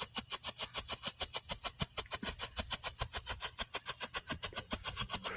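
Silver strobe firework burning, giving off a rapid, even string of sharp pops, roughly ten a second.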